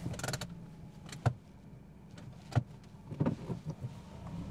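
Low, steady rumble of a car heard from inside its cabin, with a few sharp clicks and knocks spread through it.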